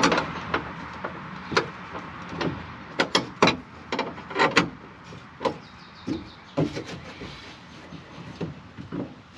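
Irregular sharp metal clicks and knocks of a wrench and hands working fasteners on the 1967 Pontiac Firebird's steel rear body panel, some coming in quick clusters.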